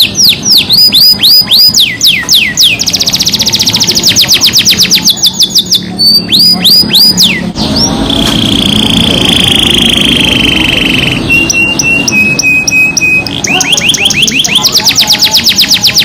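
Domestic canary singing a long song of repeated rolls. Fast series of falling whistled notes give way to a rapid trill, then a held steady whistle about halfway through and a few short level notes, before the quick falling-note rolls return near the end.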